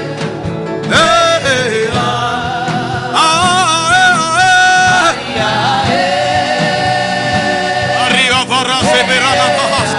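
Gospel worship singing: a voice holds long, wavering sung notes over a steady sustained instrumental backing.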